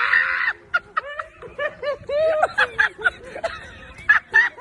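A person laughing in quick repeated snickering bursts, several short rising-and-falling notes a second.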